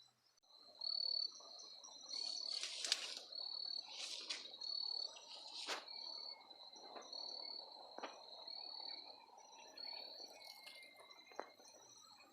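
Cricket chirping: short, high, even pulses about once a second over a low hiss, with a few sharp clicks between.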